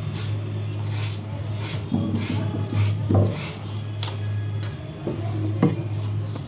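Y-shaped vegetable peeler scraping down a carrot in quick repeated strokes, peeling off the skin, with a few louder knocks.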